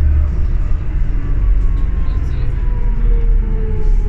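New Flyer D40LFR diesel transit bus heard from inside while under way. The low engine drone drops in pitch a fraction of a second in, and a whine slides slowly downward in pitch over the road noise.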